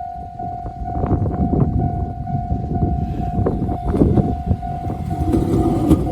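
Railway level-crossing warning bell ringing in a steady repeating tone while a train passes. The rumble and clatter of its wheels build up from about a second in, and a lower hum joins near the end.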